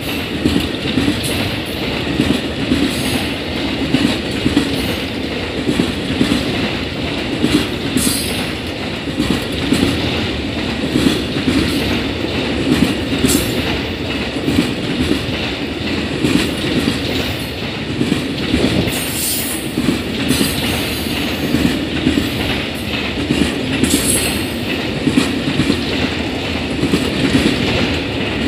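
A long train of enclosed autorack cars rolling past at a steady speed. The wheels keep up a continuous rumble on the rail with a clickety-clack over the joints, and there are short high-pitched squeals a few times.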